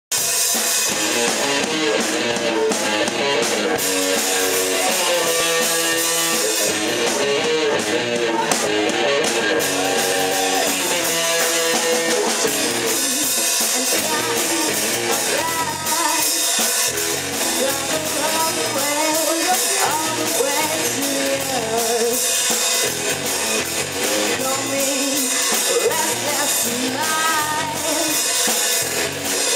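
Live rock band playing on stage: drum kit, electric guitar and bass guitar, with a woman singing into a microphone, the vocal line clearest in the second half.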